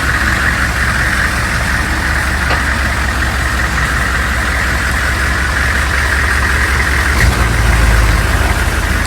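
Humvee's V8 diesel engine idling with a steady low rumble and a higher hiss over it; the rumble swells for about a second and a half some seven seconds in.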